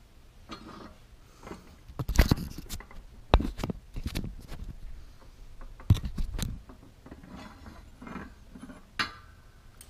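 Steel tooling being handled on a shop press: a series of metal clanks and knocks, the loudest about two seconds in, again at about three and a half and six seconds, and a sharp one near the end, with scraping and rustling between.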